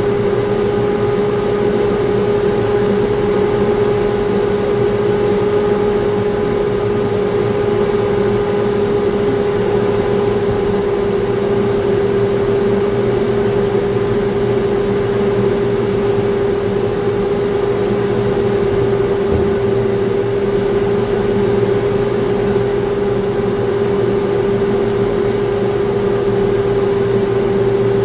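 Pushback tow tractor moving a Boeing 787-9 by its nose gear, heard up close: a loud, steady machine drone with a strong constant hum that holds one pitch throughout.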